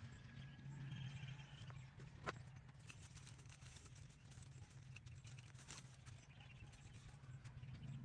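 Near silence: faint outdoor background with a low steady hum and a few light clicks and scrapes, the sharpest click about two seconds in.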